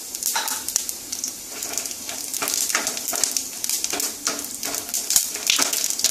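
Whole spices (cumin seeds, cardamom, cinnamon and cloves) sizzling in hot vegetable oil with many small crackles, as they are tempered. A wooden spatula stirs through them in the pan in the second half.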